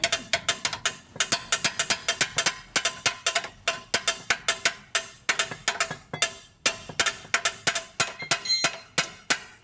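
Rapid hammer blows on metal, about four a second, each strike ringing briefly, with a short pause partway through.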